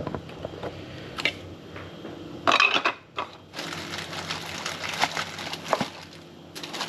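Cling film rustling and crinkling as it is handled. There is a short, loud rustle about two and a half seconds in, then a steady crinkle of thin plastic film.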